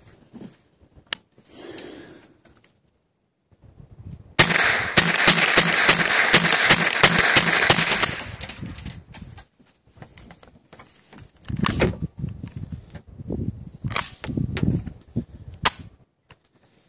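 Ruger 10/22 semi-automatic .22 rimfire rifle fired in a rapid string, about five shots a second for roughly three and a half seconds, starting about four seconds in. A few separate sharp cracks or clicks follow near the end.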